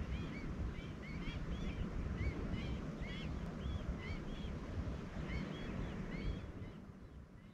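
Wind buffeting the microphone outdoors, with birds chirping over and over in the background; both fade out near the end.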